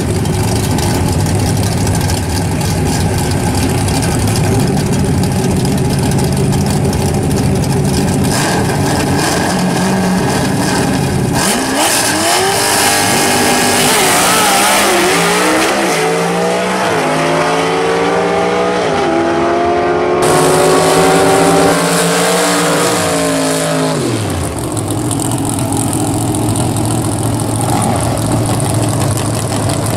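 Drag race car engines idling at the starting line, then a car launches and accelerates away down the strip, its engine pitch climbing and dropping back at each gear change for about twelve seconds before it fades out; idling engines carry on after.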